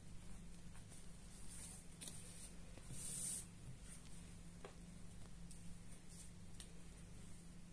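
Cross-stitch fabric rustling as it is unfolded and smoothed flat by hand. The rustle is loudest about three seconds in and rides over a steady low background hum, with a few faint clicks.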